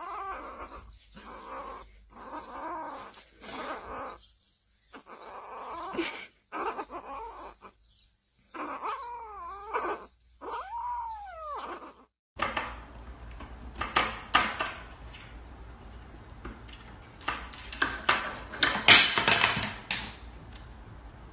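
A kitten's cries and meows, with several wavering, rising-and-falling calls about nine to twelve seconds in. Later comes a run of clicks and knocks as a cat paws and pulls at wooden cabinet drawer handles.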